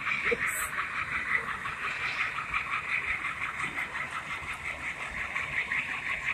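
Diesel engine sound from a model diesel locomotive's sound unit, running steadily with a fast, even throb through its tiny speaker as the train passes.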